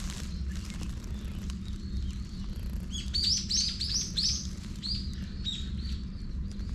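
A small songbird chirping: a quick run of sharp, high chirps starting about three seconds in, followed by a few fainter ones.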